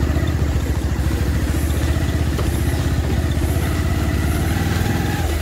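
Bajaj Pulsar 220F's single-cylinder engine running steadily as the motorcycle rides along a dirt trail.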